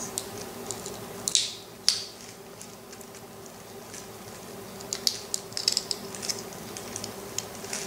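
Small plastic doll clothing pieces clicking and rustling as fingers handle and fit them: a couple of sharp clicks about a second and a half in, then a cluster of quick light ticks around five to six seconds, over a faint steady hum.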